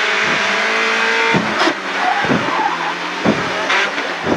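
BMW 318 iS rally car's four-cylinder engine heard from inside the cabin, driven hard through a tight right-left corner sequence. The note drops and picks up again several times as the car brakes, shifts and accelerates, with short sharp knocks between.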